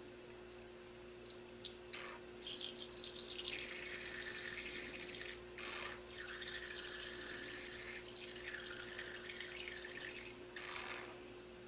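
Lemon juice squirting from a squeezed plastic lemon-shaped squeeze bottle into a measuring spoon: a faint hissing spray in two long spurts with a short break about halfway, after a few light clicks.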